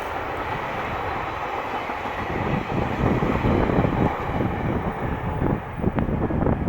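Train on the Tohoku Main Line running past, a steady rumble, with strong wind buffeting the microphone from about two and a half seconds in.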